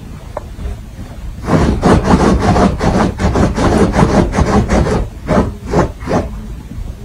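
Dachshund digging and scratching at a blanket with its paws: a rapid, scratchy rustling of fabric that starts about a second and a half in.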